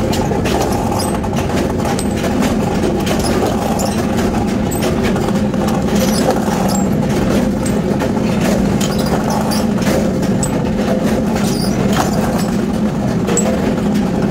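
Power press running with a steady mechanical hum, with scattered light metallic clicks as forged steel steering cones are handled and set on its die.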